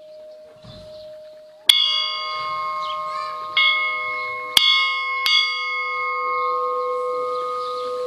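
Orthodox monastery belfry bells struck four times, about a second or two apart, each stroke ringing on and the tones overlapping. A faint hum from an earlier bell rings before the first stroke.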